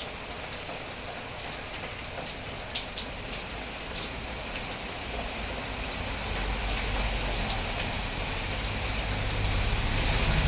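Steady rain falling, with many distinct drops striking a hard surface close by. A low rumble grows from about halfway through and is loudest near the end.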